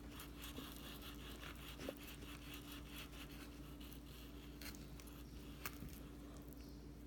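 Broad-bladed kitchen knife cutting into a block of frozen fish: faint, crackling scraping strokes as the blade works through the frost and flesh, with two sharper clicks about two seconds in and near six seconds in. A steady low hum runs underneath.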